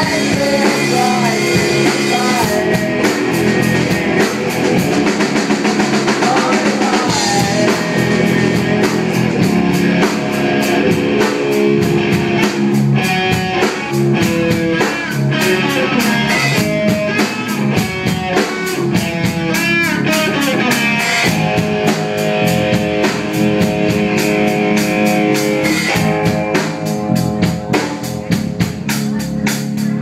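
A live rock band playing: electric guitar, electric bass and a drum kit.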